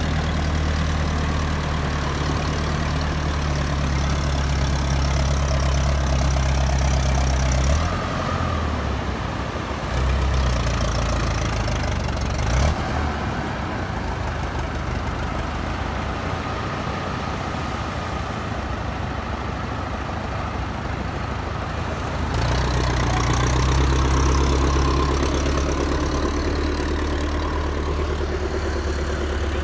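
Tractor engine idling steadily with a low, even note. The note weakens for a stretch in the middle, with one sharp knock, then comes back strong near the end.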